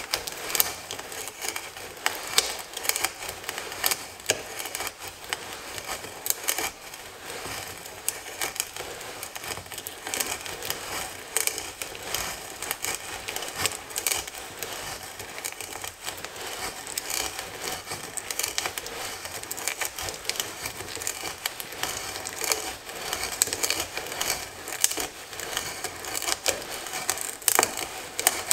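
A 1-inch auger bit in a hand brace boring into wood: a continuous crackle and crunch of wood fibres being sheared, with many small sharp clicks as the shavings curl up out of the hole.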